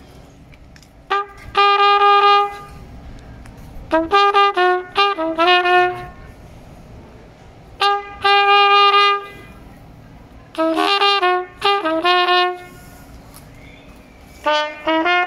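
A solo trumpet plays five short melodic phrases, mixing held notes and quick runs, with pauses between them.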